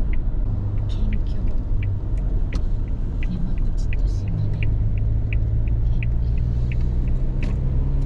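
Steady car engine and road rumble, with a light, high ticking about three times a second.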